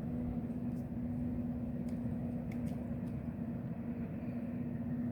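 A steady low rumble with a constant, unchanging hum: a motor or engine running.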